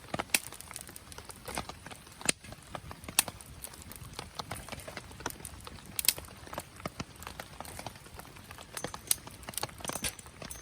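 Wood fire crackling, with irregular sharp pops and snaps over a low hiss, a few louder pops standing out.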